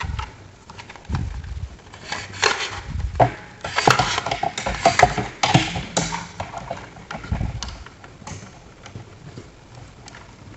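Handling noise from a plastic recessed TV box and its cables: irregular clicks, knocks and rustles as the cables are fed through the box and the box is fitted into a drywall cutout. The noises are busiest in the middle and thin out near the end.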